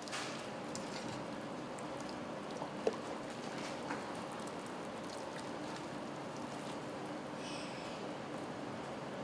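Steady commercial-kitchen background noise, an even hiss with a few faint clicks and a brief high squeak near the end.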